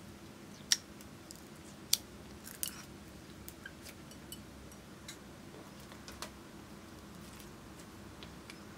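Clear slime being handled and pressed by hand, giving sharp pops and clicks: three loud ones in the first three seconds, then fainter scattered crackles. A faint steady hum runs underneath.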